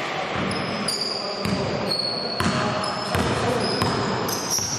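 Basketball bouncing on a gym floor in irregular thuds, with sneakers squeaking on the court during play.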